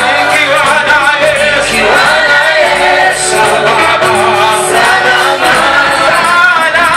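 Gospel praise song: a church praise team singing with instrumental accompaniment, loud and continuous.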